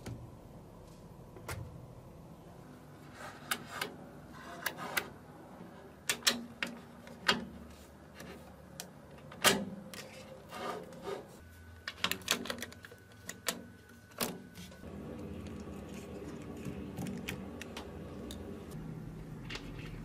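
Small magnetic balls clicking and snapping together as hands fit and pull apart pieces built from them: irregular sharp clicks, sometimes in quick clusters, with the loudest snap about halfway through.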